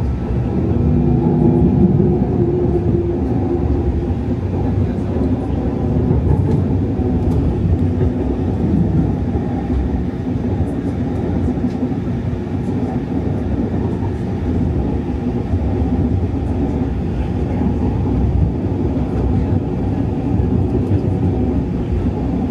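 Siemens S70 light-rail vehicle running between stations: a steady low rumble of wheels on rail with a faint hum, heard from inside the car.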